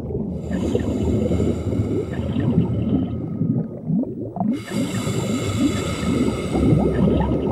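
Cartoon underwater sound effect: a dense stream of bubbling and gurgling, like a scuba diver's breath bubbles, over a steady high drone. The drone breaks off for about a second just past the middle.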